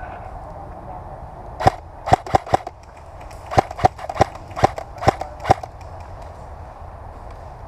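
Airsoft gun fired in single shots: a quick group of four sharp cracks, a short pause, then six more at about two a second.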